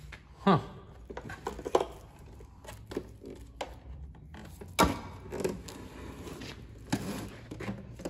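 Handling noise from a cordless wet/dry vacuum being unpacked: its plastic hose being pulled out of the storage compartment, with scattered knocks and clicks of hard plastic and a sharper click about five seconds in.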